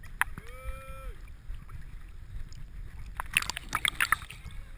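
Water sloshing and lapping around a camera housing strapped to a swimming dog's back, with a steady low rumble. A burst of splashing comes about three seconds in as the camera dips toward the water, and a brief held tone sounds near the start.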